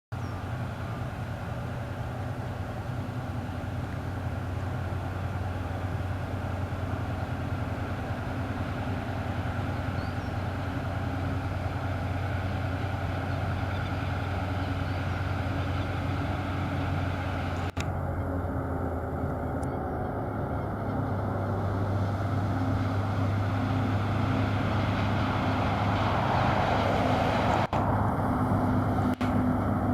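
Tasrail TR-class diesel-electric locomotives running with a steady low drone that slowly grows louder as the log train approaches. A few brief clicks come near the end.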